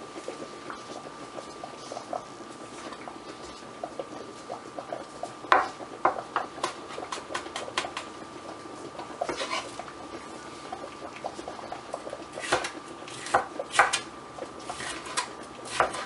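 A kitchen knife chopping red bell pepper on a cutting board: scattered taps of the blade on the board, with quick runs of strokes about five and a half seconds in, around nine seconds, and again from about twelve seconds on. A faint steady high tone runs underneath.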